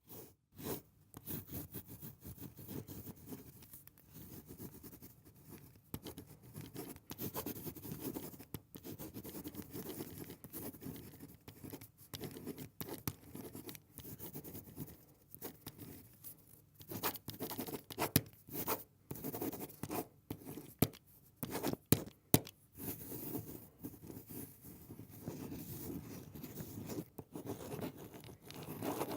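Ballpoint pen writing on paper: uneven runs of scratchy strokes broken by short pauses, with a few sharp ticks in the second half.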